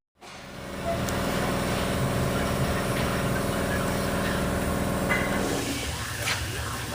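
A machine runs with a steady, even hum for about five seconds, then stops.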